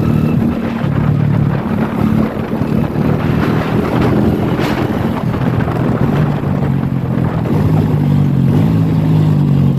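Motorcycle engine running steadily while riding on a dirt road, with wind buffeting the microphone.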